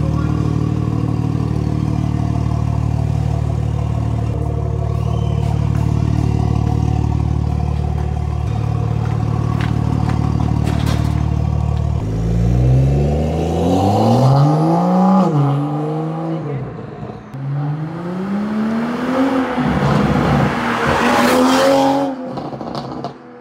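Toyota Supra MK5 with a newly fitted aftermarket exhaust idling steadily in a basement garage, which makes it sound louder. About halfway through the car pulls away and accelerates, its engine pitch climbing, dropping and climbing again several times as it revs through the gears.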